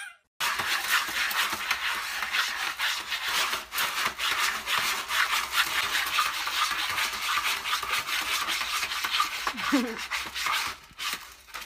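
Cat digging in a plastic litter box of pellet litter: rapid, continuous scratching and raking of the pellets, breaking off near the end.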